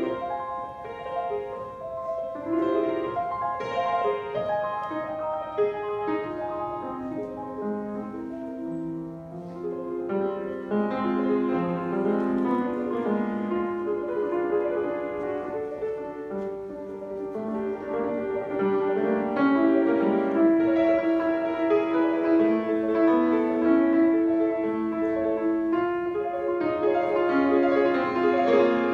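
Grand piano played solo: a flowing piece with many held, overlapping notes, growing louder about two-thirds of the way through.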